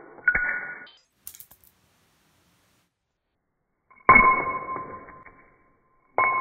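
Shards of a broken drinking glass striking a tile floor, heard in slow motion. There is a clink at the start, then a few seconds of quiet, then two sharp strikes about two seconds apart. Each strike rings on as a pair of steady, bell-like tones that slowly die away.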